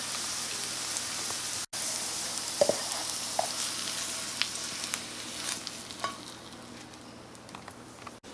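Maitake (hen of the woods) mushrooms sizzling in butter and oil in a nonstick frying pan. Between about two and six seconds in, a spatula scrapes and clicks against the pan as the pieces are pushed together. The sizzle grows quieter near the end.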